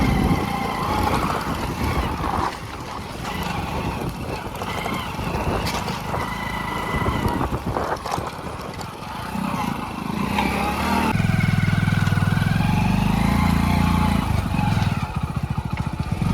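Hero Splendor motorcycle's single-cylinder engine running unevenly at low revs, then settling into a steadier, louder run from about eleven seconds in.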